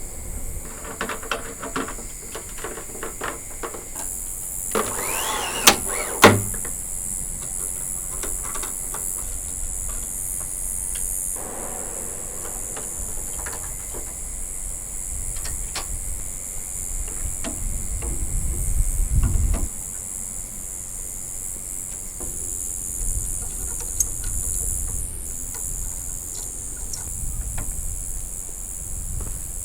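Night-time outdoor ambience: gusty wind rumbling on the microphone, swelling into a stronger gust past the middle, under a steady high chirring of insects. Scattered small clicks and knocks of handled gear, loudest as two sharp knocks about six seconds in.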